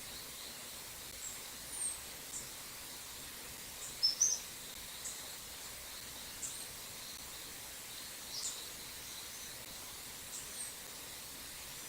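Birds giving short, high chirps and call notes every second or two, the loudest a quick pair about four seconds in, over a steady high-pitched background hiss of insects and running water.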